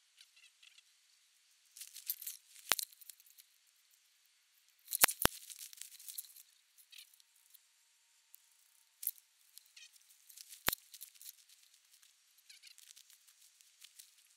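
Ghillie suit and dry foliage rustling and crinkling in patches as the player shifts through the brush. A few sharp clicks are heard, two in quick succession about five seconds in.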